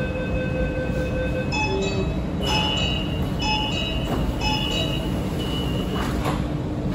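Metro train door-closing warning: a repeated electronic beep about once a second over the steady hum of the stopped train, with knocks near the end as the sliding doors come together.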